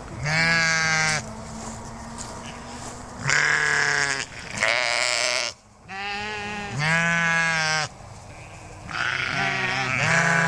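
Sheep bleating: about five long, wavering bleats, each lasting about a second, with short gaps between them.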